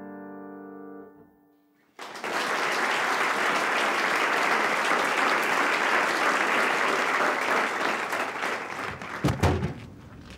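The last chord of a grand piano dies away, then after a brief silence an audience applauds steadily for about seven seconds. A couple of heavy thumps come near the end as the applause fades.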